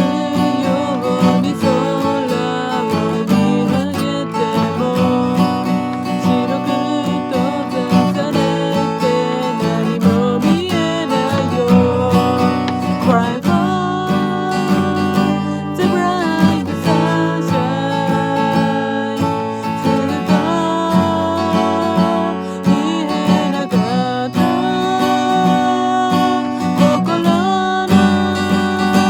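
Acoustic guitar strummed steadily as song accompaniment.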